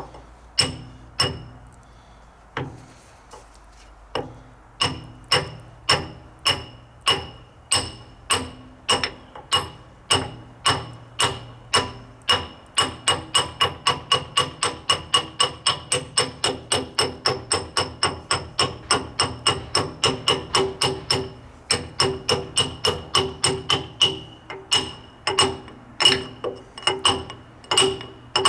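Hammer blows on the steel pivot pin of a John Deere 410 backhoe's boom cylinder, driving the pin out. Each strike rings metallically; a few spaced blows at first, then steady hammering about twice a second that quickens to about three a second partway through, with a brief pause near the end.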